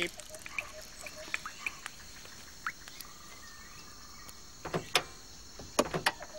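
Jungle ambience: a steady insect drone with scattered small bird chirps, and a few sharp taps or clicks near the end.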